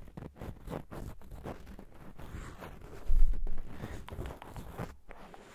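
ASMR ear-cleaning sounds: close, irregular rubbing and scratching with crackly clicks, as an ear-cleaning tool is worked against the microphone. There is a loud low bump about three seconds in.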